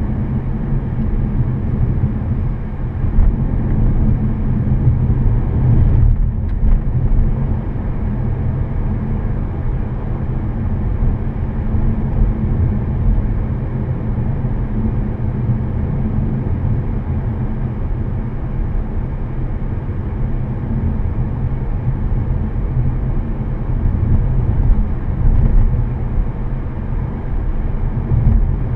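Inside the cabin of a 2014 Volkswagen Passat 1.8T under way: a steady low rumble of the turbocharged four-cylinder engine and the tyres on the road.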